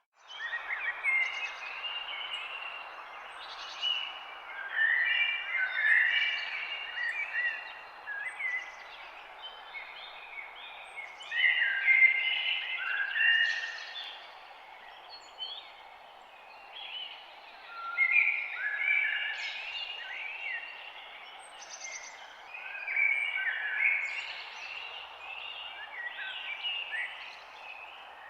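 Many songbirds chirping and singing in overlapping calls, over a steady background hiss.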